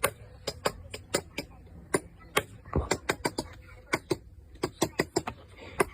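A run of sharp, irregular clicks or taps, about three to four a second, with a soft low thump a little before the middle.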